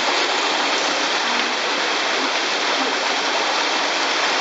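Steady rushing water, a loud, even hiss with no breaks or splashes.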